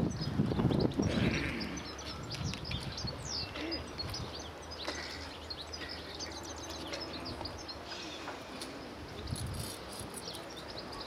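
Birds chirping and twittering in many short, high calls, over a low, steady rumble.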